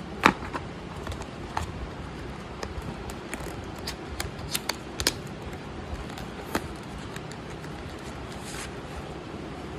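Cardboard gift box and plastic gimbal parts being handled: scattered clicks and taps, with a sharp knock about a quarter second in, a cluster of clicks around the middle, and a short papery rustle near the end.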